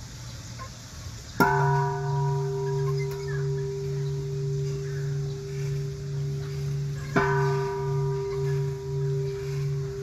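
Large Korean-style hanging bell struck twice with a suspended wooden log striker, about six seconds apart. Each strike rings out and then hums on, its low tone swelling and fading in a slow, regular wobble.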